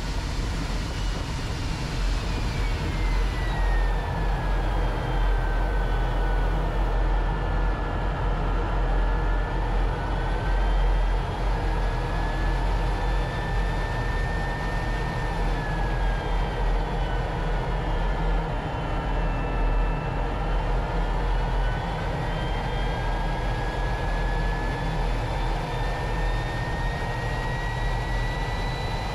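L-39 Albatros's Ivchenko AI-25TL turbofan engine running, heard inside the cockpit: a steady rumble under a whine that slides down in pitch over the first several seconds, dips again around the middle, and rises near the end as the power is adjusted on approach.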